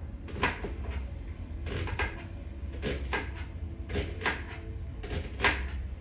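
Household clatter from someone cooking in the kitchen: short knocks or scrapes, mostly in pairs, repeating roughly once a second over a low steady hum.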